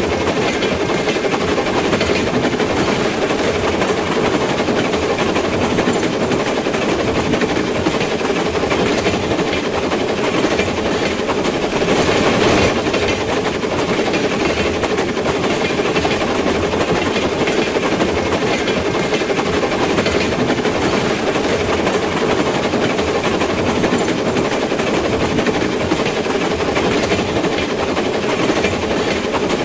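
Train running along the rails: a steady, continuous rumble, briefly a little louder about twelve seconds in.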